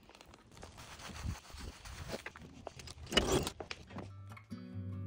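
Handling noise of potted succulents being gathered up and moved: irregular rustling with light knocks, and a louder rustle about three seconds in. Strummed acoustic guitar music comes in near the end.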